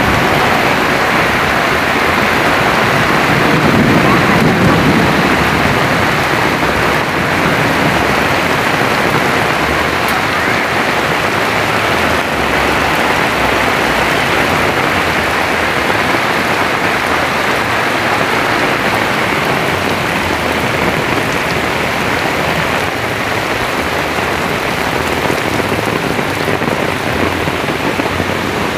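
Torrential rain pouring down in a dense, steady hiss, with a low rumble that swells briefly a few seconds in.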